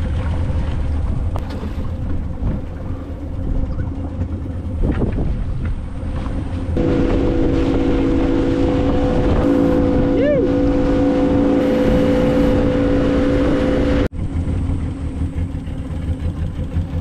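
Small boat's outboard motor running, with water rushing past the hull. From about 7 s it holds a steady higher drone at speed, which cuts off suddenly about 14 s in and gives way to a lower, rougher running.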